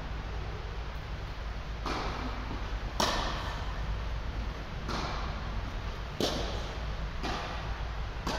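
Tennis balls struck by rackets and bouncing on the court in a doubles rally: six sharp pops about a second apart, the loudest about 3 and 6 seconds in, each echoing in a large indoor hall over a steady low rumble.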